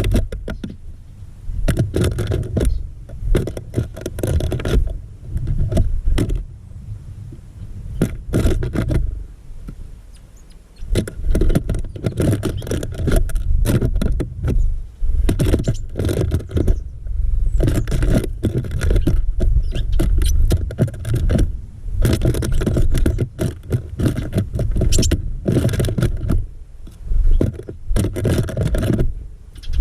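Small birds in a feeder right against the camera: irregular taps and scrapes of claws and beaks on the feeder, some in quick clusters, over a steady low wind rumble on the microphone.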